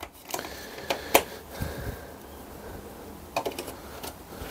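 Insulated screwdriver blades being handled and clipped into their hard plastic case: scattered light plastic clicks and taps, the sharpest about a second in and a short run of them about three and a half seconds in.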